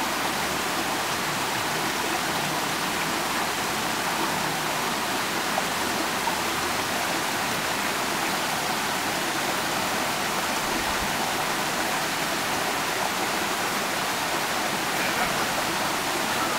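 A stream rushing steadily, an even hiss of running water that stays at one level throughout.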